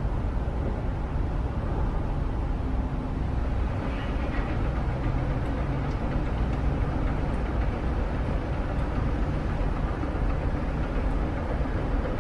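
Steady restaurant room noise: an even low rumble with no distinct events.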